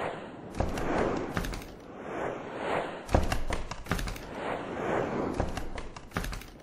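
Animation sound effects: several whooshes that swell and fade, broken by sharp thuds and quick runs of clicks, the heaviest thud about three seconds in.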